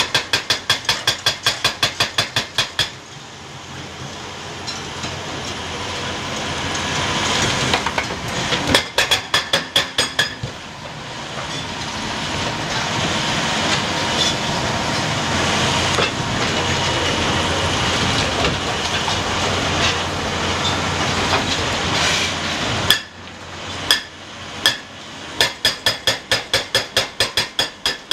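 Cat H180Es hydraulic hammer on a Cat 352F XE excavator pounding rock in runs of rapid blows, several a second: at the start, about nine seconds in, and again near the end. Between the runs there is a long, steady mechanical din that builds up for a few seconds.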